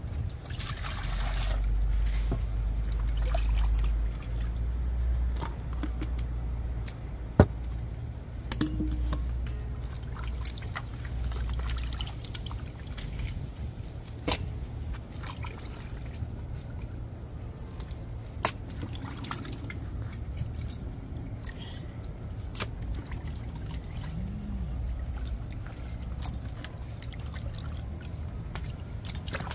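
Water pouring and trickling, over a steady low rumble, with a few sharp knocks.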